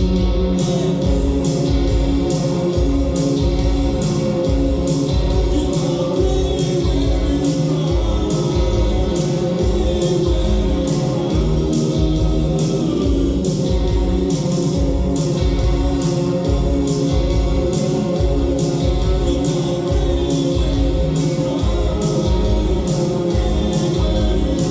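Live rock band playing: a steady drum beat of about two kicks a second under guitar, with singing.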